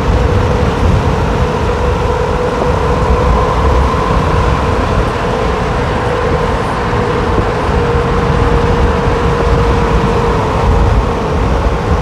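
Highway driving noise from a moving vehicle: wind buffeting the microphone over a steady road and tyre drone, with a constant humming tone.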